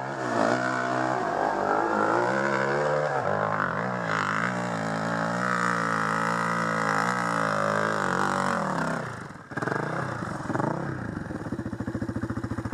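Dirt bike engine working hard up a steep dirt hill, its pitch rising and falling with the throttle. About nine and a half seconds in it drops away briefly, then runs on as a steady, fast, even chugging.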